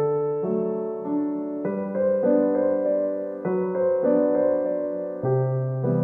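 Background piano music: slow, gentle chords with a new note or chord about every second.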